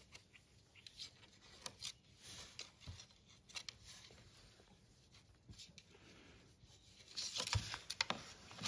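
Faint rustling and soft clicks of a hand stroking and handling a young puppy on blankets, thickening into a denser rustle about seven seconds in.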